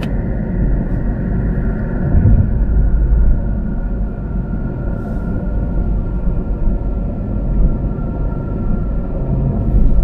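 Car driving along at steady speed, heard from inside the cabin: a continuous low rumble of engine and tyres on the road, with a faint steady whine above it.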